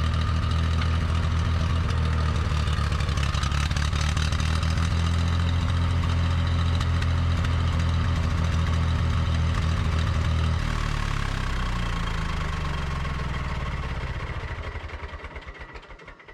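Massey Ferguson 135's three-cylinder Perkins gas engine running steadily. About ten seconds in it drops off and winds down, its beats slowing until it stops near the end.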